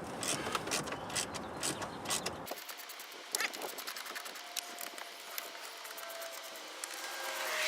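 Ratchet wrench clicking, about three clicks a second, loosening the 7mm fasteners that hold a car's head unit. After a couple of seconds the background drops away and only a few faint clicks remain.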